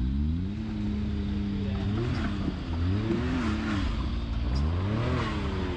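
Side-by-side UTV engine revving up and down in several bursts as the machine climbs a rock ledge under load.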